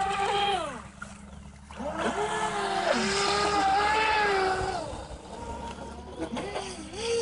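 Atomik Barbwire electric RC speedboat's motor whining as the boat runs on the water, its pitch rising and falling with the throttle. A short burst at the start dips away around a second in, then a long, higher-pitched run from about 2 to 5 s eases off.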